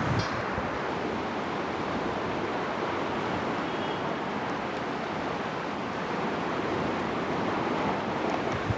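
Steady rushing of sea water and wind, with no distinct events.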